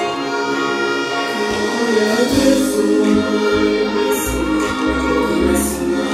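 Live band music through a concert PA system, with a singer on the microphone over held notes. A deep bass comes in about two seconds in.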